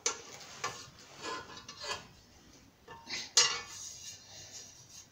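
Metal grill parts being handled during assembly: a run of clinks and knocks, with the loudest clank about three and a half seconds in.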